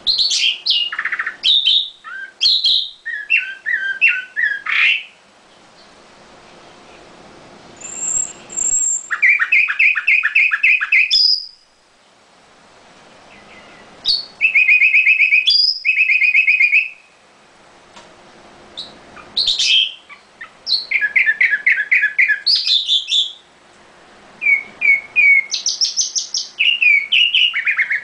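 Red-billed leiothrix (Chinese nightingale) singing: five loud phrases of quick, repeated whistled notes, each a few seconds long, with short pauses between them.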